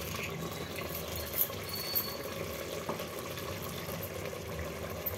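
Tomato curry with meatballs boiling in an aluminium pot: a steady bubbling with a couple of small sharper pops.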